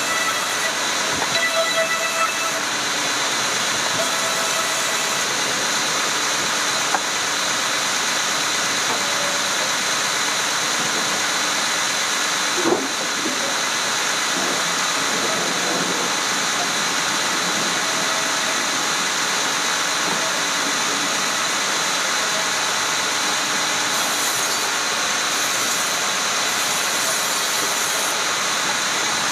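Woodworking machine running steadily, a constant loud hiss with a high whine in it; a short knock about halfway through.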